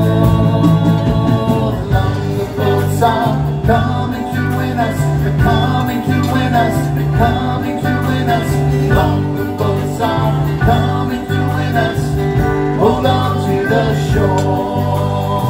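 Live band playing a folk-rock song, with strummed acoustic guitars, bass, keyboards and drums keeping a steady beat.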